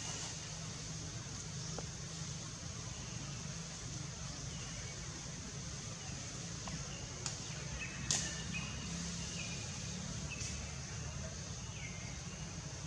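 Outdoor ambience: a steady high-pitched hiss, with a few short chirps scattered through and two sharp clicks, the second the loudest moment.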